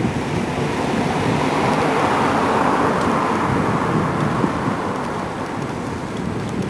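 Wind buffeting the microphone of a camera held by a moving cyclist, over street traffic noise that swells and then fades a few seconds in, like a vehicle passing.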